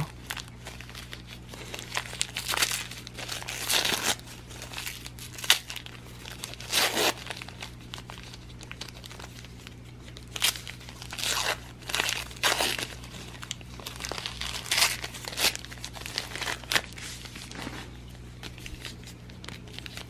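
Christmas wrapping paper being torn and crinkled by hand while a small wrapped gift is unwrapped, in irregular short bursts, over a low steady hum.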